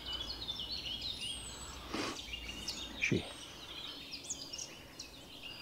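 Small woodland songbirds chirping and trilling, many short high calls overlapping. Two brief noises cut in about two and three seconds in.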